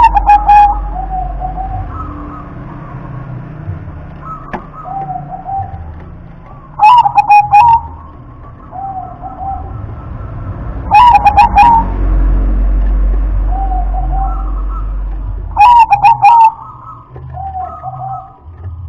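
Zebra dove (perkutut) singing its cooing song. The phrase repeats every four to five seconds, each opening with a few very loud notes followed by softer, lower coos. A low steady rumble runs underneath.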